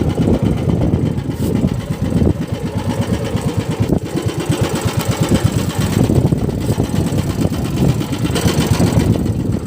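A small fishing boat's engine running steadily, with a rapid, even beat.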